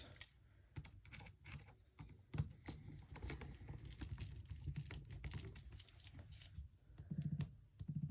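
Irregular small clicks and taps of a precision screwdriver working the screws inside an opened iPhone 11, tightening the loose Taptic engine. A few short low buzzes come near the end.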